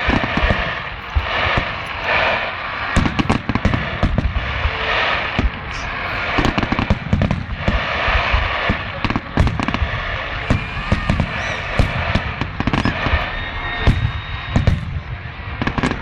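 Fireworks display: a dense, continuous run of booming aerial shell bursts with crackling between them.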